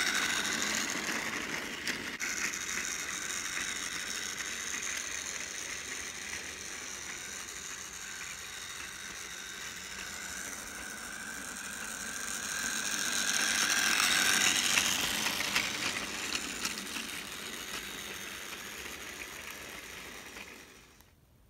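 Tomy Oliver battery-powered toy train's small electric motor and plastic gears whirring as it runs around the track, running slowly on an old battery. The whir grows louder about two-thirds of the way through as the engine passes close, then fades out near the end.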